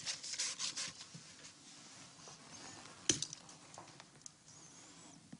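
Faint rubbing and rustling of gear being handled, with light clicks in the first second and one sharp knock about three seconds in.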